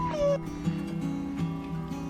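Background music with plucked acoustic guitar notes, and a short high vocal sound right at the start.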